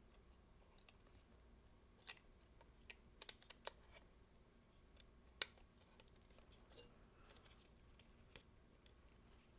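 Small, sharp clicks and taps of a camera's LCD panel and plastic bezel being handled and pressed together. They come scattered and quiet, with a quick cluster a few seconds in and one louder click past the middle.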